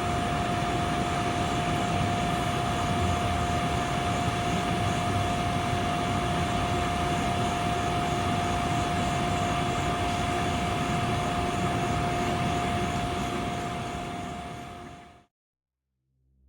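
A steady mechanical drone with a constant high hum running over a broad noisy rush, fading out over the last couple of seconds and cutting off about a second before the end.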